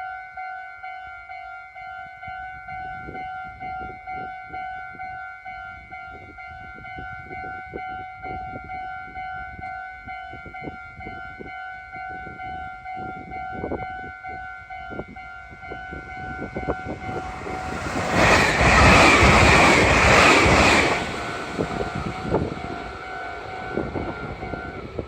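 Japanese level-crossing alarm ringing its repeating 'kan-kan' tones, with a run of sharp clicks as a train approaches. About 18 s in, a Meitetsu μSKY electric train rushes loudly past the crossing for about three seconds, and the alarm stops near the end.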